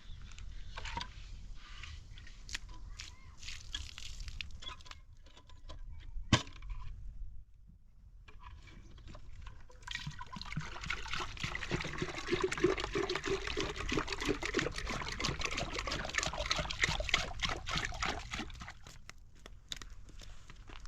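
Water pouring and splashing, with scattered small clicks and knocks. The water sound grows louder and denser about ten seconds in, then eases off near the end.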